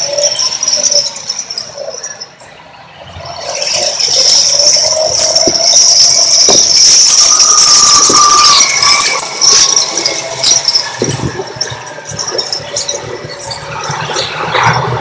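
A steady high-pitched metallic squeal over machine noise from a backhoe loader working, dropping away briefly about two and a half seconds in, with scattered knocks and rattles later on.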